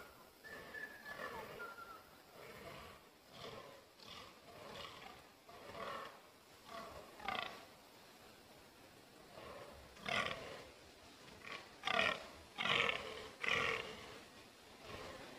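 Fallow bucks croaking in the rut: a string of short, rough, belching calls about once a second, growing louder, with the loudest four near the end.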